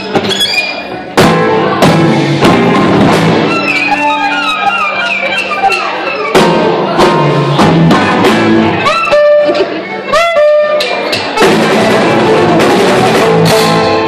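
Live band playing: a violin leads with fast runs and sliding notes over electric bass guitar and a drum kit.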